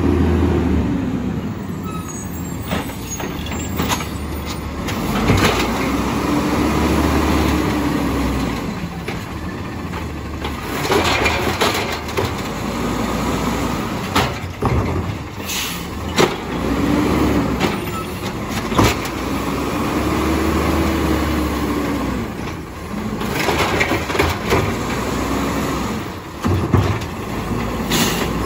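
Peterbilt automated side-loader garbage truck with a natural-gas engine, revving up and down again and again with a rising and falling whine as the hydraulic arm grabs, lifts and dumps the carts. Short clanks and air-brake hisses are mixed in.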